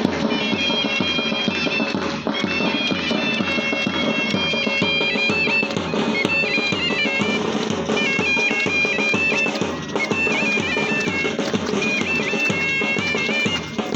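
Pipe band playing a march: a bagpipe melody over steady drones, with a regular drumbeat underneath.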